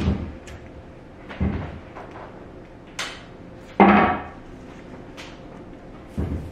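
Masking tape being pulled off the roll and laid down on watercolour paper on a tabletop: a few short rasps and knocks of handling, the loudest a half-second rip of tape about four seconds in.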